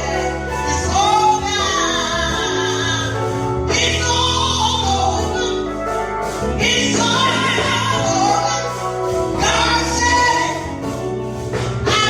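Gospel music: voices singing over a steady bass accompaniment.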